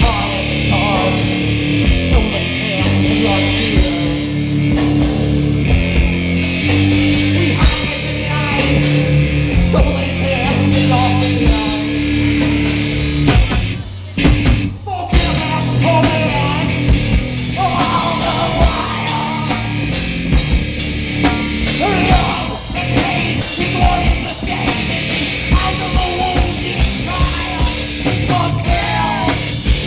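A rock band playing live: distorted electric guitar chords over a drum kit. There is a short break about halfway through, and then a singer's voice comes in over the band.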